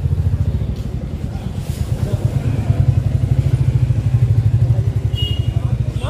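Motorcycle engine running steadily at low revs, an even low throb.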